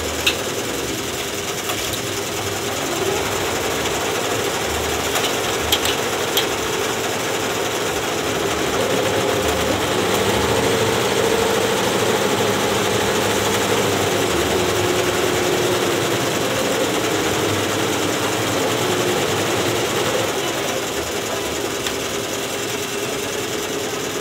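Several multi-needle embroidery machines stitching at once: a steady, fast mechanical clatter, a little louder in the middle, with a few sharp clicks.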